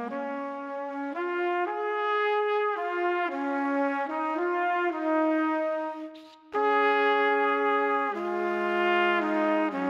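Background music: a slow melody of long held notes, with a short break about six seconds in.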